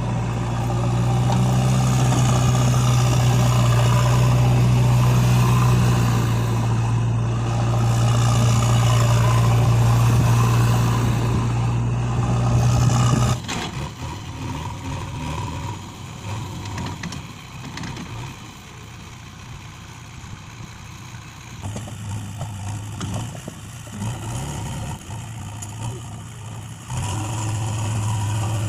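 Toy JCB making an engine-like sound: a loud, steady low hum that cuts off suddenly about 13 seconds in. Quieter handling and rattling sounds follow, and the hum starts again near the end.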